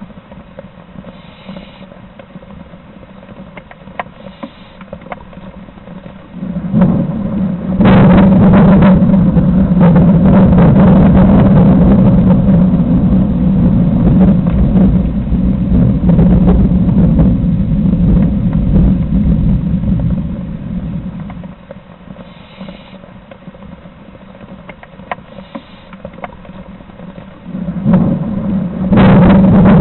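Electric blower running with a steady hum and a rush of air. It starts about seven seconds in, cuts off after about twenty-one seconds and starts again near the end.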